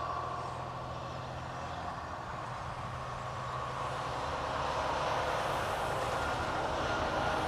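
Scania truck's diesel engine running steadily, growing a little louder about halfway through.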